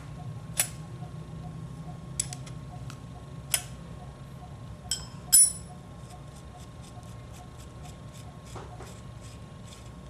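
A metal 10 mm wrench clinking against the propeller nut of an OS 46AXII model aircraft engine while the nut is being loosened. Sharp clicks and knocks, the loudest about halfway through with a short ring, are followed by a run of faint, quick, evenly spaced ticks.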